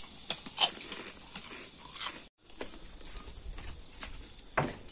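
A few crisp crunches of a puffed snack stick being bitten and chewed. About halfway the sound cuts out for a moment, then there is only a faint low rumble with a single knock near the end.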